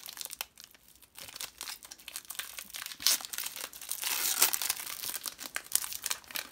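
Foil wrapper of a Pokémon TCG booster pack crinkling as it is handled, then torn open with a denser, louder crackling tear about three to four seconds in.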